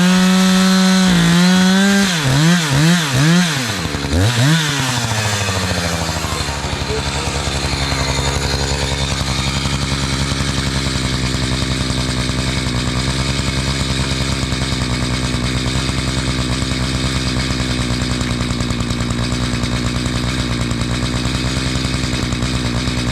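Chainsaw running at full throttle, then revved and let off about four times, then dropping to a steady idle from about six seconds in.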